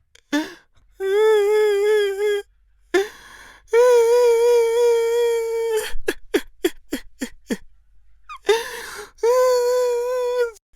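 A man crying: three long, high, quavering wails, with a quick run of short gasping sobs between the second and third.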